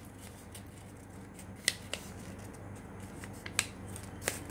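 A sheet of A4 paper crackling as it is folded and creased by hand, with about four sharp crisp snaps of the paper over a faint steady hum.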